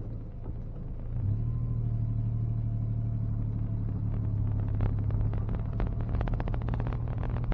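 Supercharged 719 cc Kubota D722 three-cylinder diesel in a Honda Insight, heard from inside the cabin: a steady low rumble that gets louder about a second in as the car pulls away, with a rapid clatter building through the second half.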